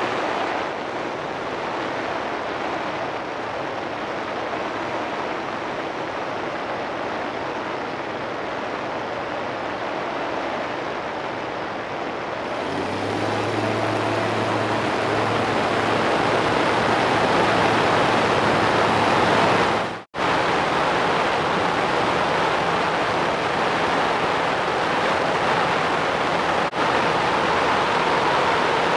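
Wind rushing over a strut-mounted camera on a Zenith CH701 light aircraft flying low and fast, with the aircraft's engine running underneath. About halfway in a steady low engine hum comes up and the sound grows louder. The sound cuts out for an instant about two-thirds of the way through.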